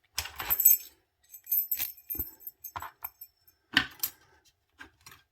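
Small metal parts of a lock cylinder and its keys clinking and jingling as they are handled, with a ringing jingle in the first two seconds, then a few separate sharp clicks.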